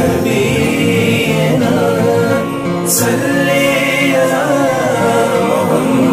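Background music: a devotional Urdu naat in praise of the Prophet, sung in long, wavering notes over a steady musical backing.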